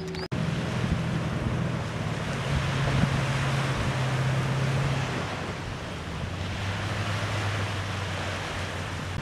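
Wind buffeting the microphone over surf, with the low steady drone of tracked amphibious assault vehicles' engines underneath; the drone drops in pitch about six seconds in.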